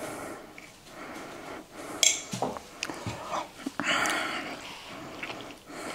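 A spoon clinking and scraping in a jar of strawberry jam: a few sharp clicks, the strongest about two seconds in, and a longer scrape about four seconds in.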